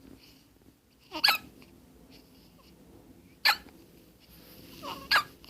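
Three sharp, squeaky hiccups, about two seconds apart.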